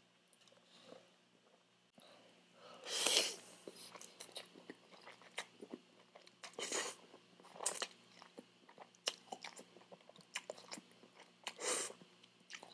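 Close-up mouth sounds of eating spaghetti: three loud slurps of noodles, a few seconds apart, with wet chewing and lip smacks between them.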